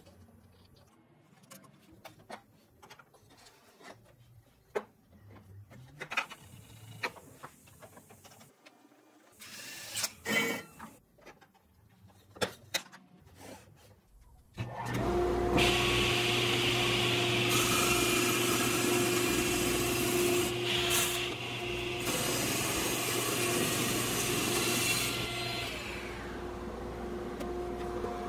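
Scattered light knocks and clicks of wooden pieces being handled, then about halfway a table saw switches on and runs steadily with a constant hum. For several seconds a harsher hiss of wood being cut rides over the motor, easing off near the end while the saw keeps running.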